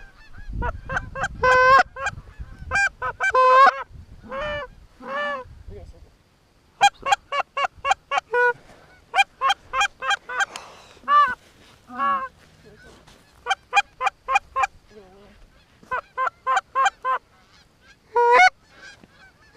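Canada goose honks and clucks: short, sharp honks in quick runs of several at a time, separated by pauses of a second or more. A low rumble sits under the first couple of seconds.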